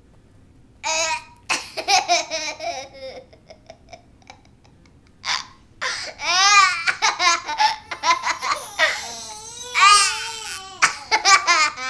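A young child laughing in high-pitched squeals and giggles, in several bouts with a short pause in the middle.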